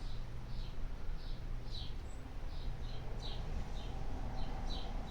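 Ferret making short, high-pitched calls, about two a second in an uneven run, over a steady low hum.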